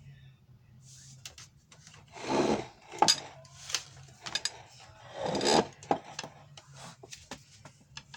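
Two short rasping, rubbing noises, about two and five seconds in, with scattered sharp clicks and taps between them, as food, dishes or packaging are handled close to the microphone.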